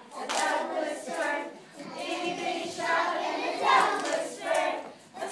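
A small group of young children singing an action song together, in phrases with short breaks between them.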